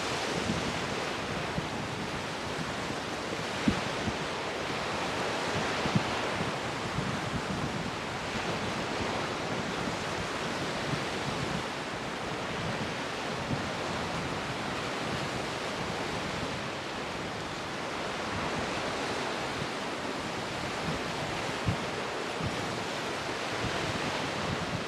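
Rough surf and strong wind make a steady rushing noise. Wind gusts buffet the microphone in a few short low thumps, the clearest about four and six seconds in.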